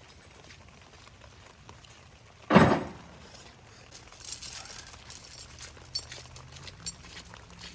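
A single heavy thump about two and a half seconds in, then scattered light clicks and rattles.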